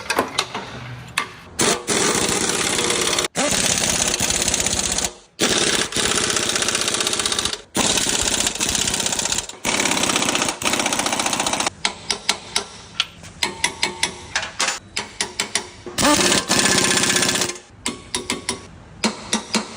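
Pneumatic impact wrench hammering in long runs of a second or two, then in many short bursts near the end.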